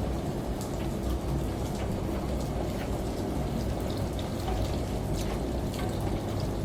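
Layered home ambience: running, spattering water with scattered drips over a steady low hum, the hum of a washing machine.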